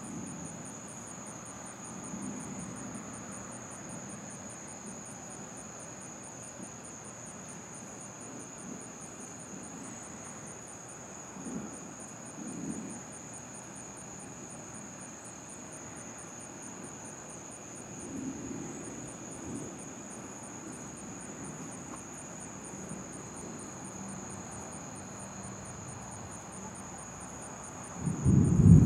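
Night insects chirping in a steady high trill, with distant thunder rumbling softly several times. Near the end a much louder thunder rumble breaks in.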